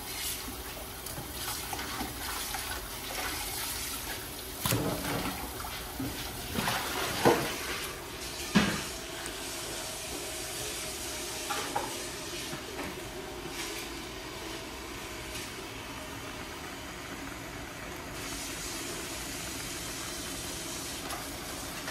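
Water running from a kitchen tap into a metal pot in a stainless steel sink, with a few short clanks of pots and utensils near the middle.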